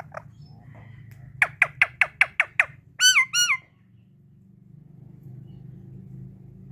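A pet parakeet calling: a couple of short chirps, then a fast run of about seven sharp, downward-sliding chirps, then two longer, harsh squawks about three seconds in.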